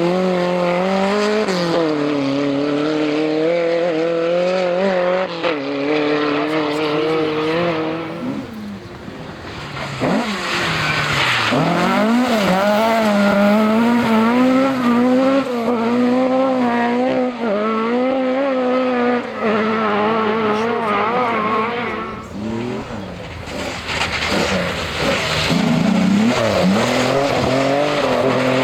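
Historic rally car engines at full throttle on a special stage, revving up and down through gear changes and corners. The sound eases off twice, about a third of the way in and again about three-quarters in, consistent with cars coming through one after another.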